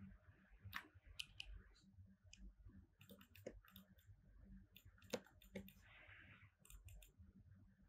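Faint, irregular computer mouse clicks, a dozen or more scattered sharp ticks, against near silence.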